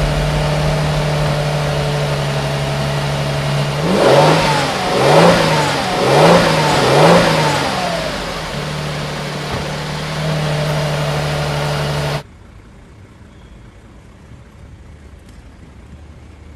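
2022 Lexus LX's V6 engine idling, then revved four times in quick succession about four seconds in, each rev rising and falling back before it settles to idle again. The engine sound cuts off abruptly about three-quarters of the way through, leaving a much quieter low background.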